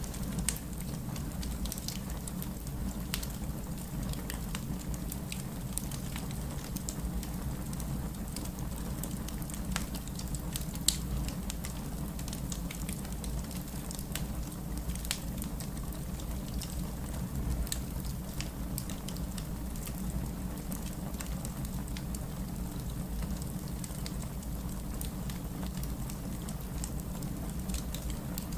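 Wood fire crackling in a fireplace: a steady low rumble of flame with irregular small pops and snaps, one sharper pop about eleven seconds in.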